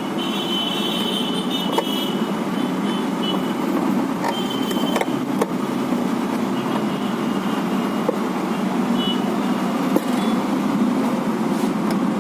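Steady background noise, with a few light clicks and taps from plastic printer parts being handled and pried apart.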